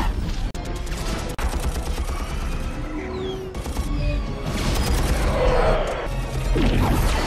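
Film battle sound mix: a rapid volley of sci-fi blaster shots and explosion impacts over a low rumble, with the film's score running underneath.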